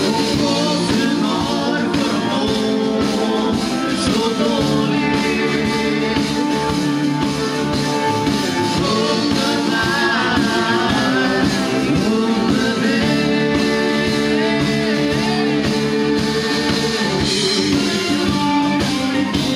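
A live rock band playing, with electric guitar, keyboard and drums, and a woman singing lead.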